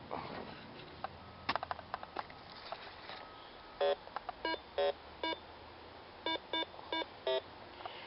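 Metal detector beeping about eight times in short, evenly pitched tones in the second half, signalling a metal target in the dug soil. Scattered clicks and rustling of soil being handled come before the beeps.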